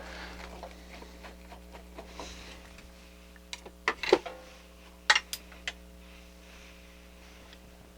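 Scattered clicks and knocks from handling the receiver while removing its bottom cover: one near the start, then a cluster around four to six seconds in, over a faint steady hum.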